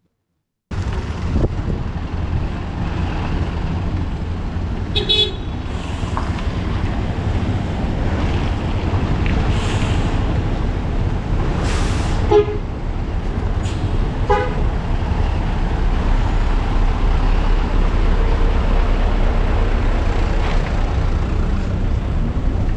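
Street traffic with a steady low rumble, and short vehicle horn toots about 5, 12 and 14 seconds in. The sound starts abruptly just under a second in.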